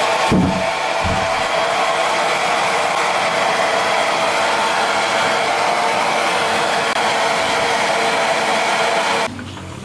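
Hand-held hair dryer blowing steadily, with a fixed motor whine under the rush of air; it is switched off about nine seconds in. Two low thumps come near the start.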